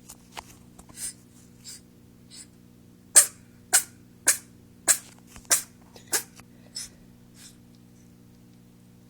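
Six-week-old kitten sneezing over and over: a few small sneezes, then a run of about eight sharp sneezes a little over half a second apart, which stops near the end.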